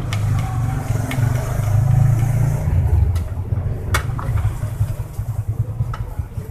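A motor vehicle's engine running, swelling over the first few seconds and then easing off, with a few sharp metal clicks of parts being handled.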